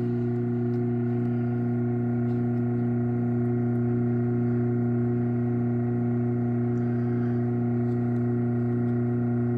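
Craftsman 1/2 hp garage door opener running with a steady, even electric motor hum.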